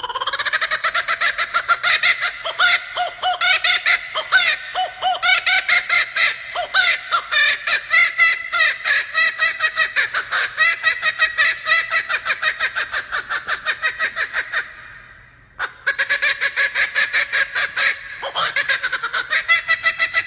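Male laughing kookaburra giving its laughing call: a long run of rapid, rising and falling hoots. It fades and pauses briefly about three-quarters of the way through, then starts up again.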